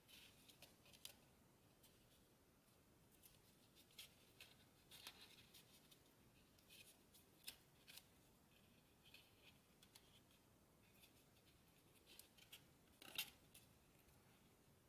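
Faint crinkling and crisp clicks of folded origami paper being pinched and shaped between the fingers, scattered irregularly, with the loudest crackle about thirteen seconds in.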